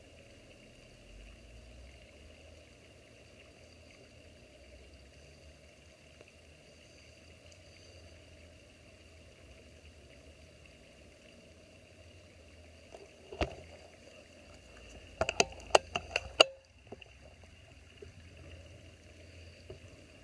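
Faint steady background hiss, broken about 13 seconds in by a single sharp click. Some two seconds later comes a quick run of five or six louder sharp clicks and knocks over about a second: the .22 Cricket air rifle being fired and handled.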